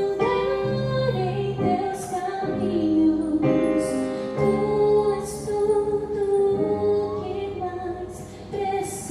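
A song with a woman singing held notes over instrumental accompaniment.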